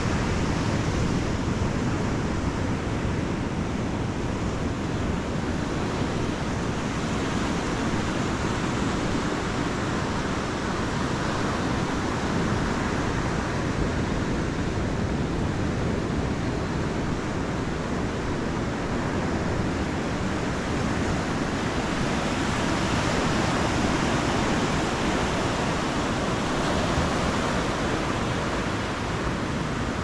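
Ocean surf breaking and washing onto a sandy beach: a steady rush that swells a little louder about two-thirds of the way through.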